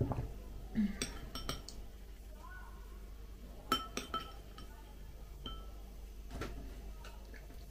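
Metal spoon clinking against glassware while scooping soaked dried apricots from a glass bowl: scattered clinks, several in quick succession about a second in and again near four seconds, some ringing briefly.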